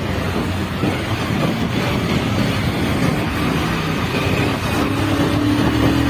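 Bajaj Pulsar 220F's single-cylinder engine running under throttle while riding. About five seconds in, the engine note climbs as the bike accelerates.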